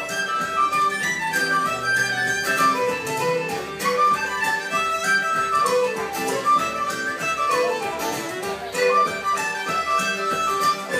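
Fiddle playing a fast Irish traditional dance tune in a run of quick notes, over a steady low beat of accompaniment.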